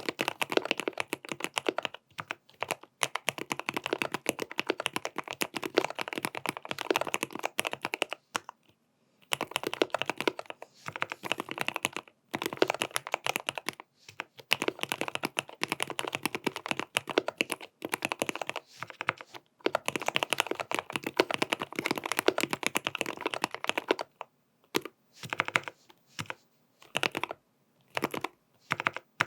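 Typing on a GMMK PRO custom mechanical keyboard with stock Gateron North Pole linear switches, tape-modded, with PBT cherry-profile keycaps: a fast stream of keystroke clacks. It pauses briefly about nine seconds in and about twenty-four seconds in, and ends with a few spaced keystrokes.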